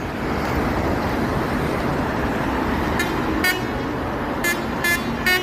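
A truck's basuri telolet horn, triggered over Bluetooth from an Android app module, plays short toots of differing pitch starting about three seconds in, five in quick succession. Before the toots there is only a steady noisy rumble.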